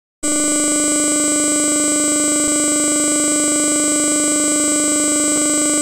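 A loud, steady electronic buzzing tone, one unchanging pitch with many overtones. It starts just after the beginning and cuts off suddenly near the end.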